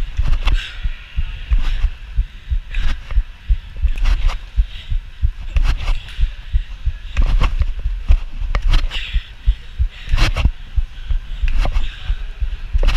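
Trampoline bounces picked up by a camera worn by the jumper: a regular thud about three times every four seconds as he lands on the bed and is thrown back up. Under the thuds runs a steady low rumble.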